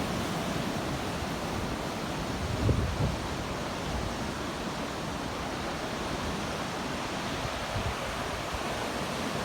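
Steady roar of ocean surf breaking on the beach, with a short louder low rumble about three seconds in.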